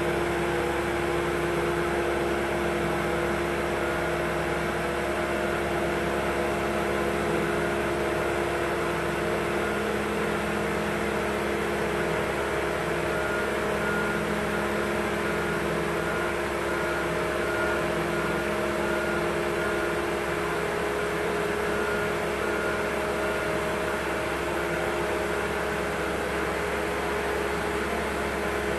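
Machinery running with a steady hum, several held tones over an even hiss, unchanging throughout.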